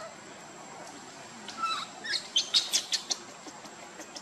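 Bird chirping: a quick run of short, sharp high chirps a couple of seconds in.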